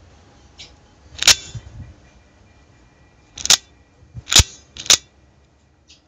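Automatic folding knife (switchblade) snapping as its spring-driven blade is worked: four sharp metallic clicks, one about a second in and three close together in the second half, with a couple of fainter clicks.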